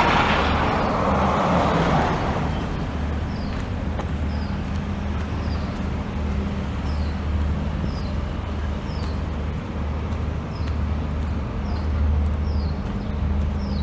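City street ambience: a low, uneven rumble of traffic, with a vehicle passing close in the first two seconds. From about three seconds in, a short high falling chirp repeats roughly every 0.7 seconds.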